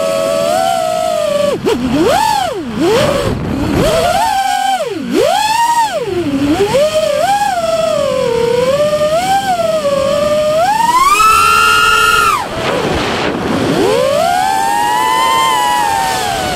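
Quadcopter drone's electric motors and propellers whining, the pitch swooping up and down again and again as the throttle is punched and cut. It climbs to its highest, steadiest whine about eleven seconds in, then drops away and rises again.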